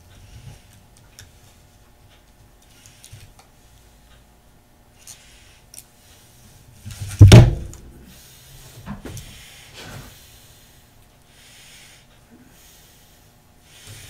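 Faint handling and rustling of small objects on a workbench, with one loud thump about seven seconds in and two softer knocks a couple of seconds later.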